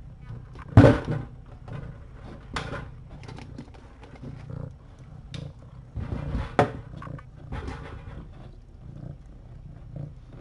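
A mother cat purring close to the microphone, a steady low rumble, while she licks and grooms her nursing kittens. A few sharp bumps and rustles break through, the loudest about a second in.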